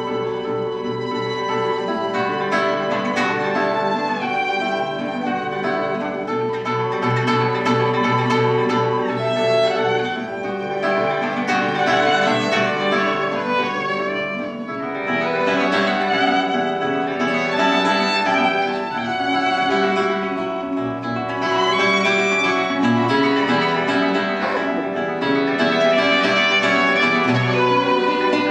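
Violin and classical guitar playing a duet: a bowed violin melody over plucked guitar accompaniment.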